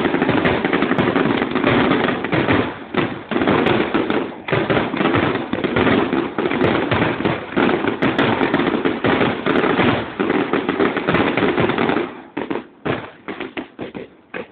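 Aerial fireworks going off in a dense, unbroken barrage of bangs and crackling bursts, thinning to scattered separate bangs in the last two seconds or so.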